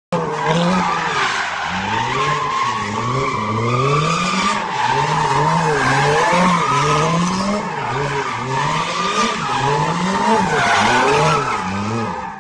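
Car drifting: engine revs rising and falling about once a second as the driver works the throttle, with the tyres squealing throughout.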